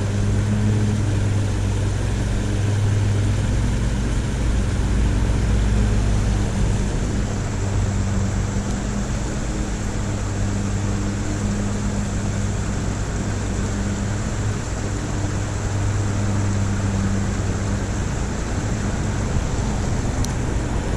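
Road traffic droning steadily, louder for the first several seconds and again a little past the middle, over the even rush of water pouring through a creek spillway.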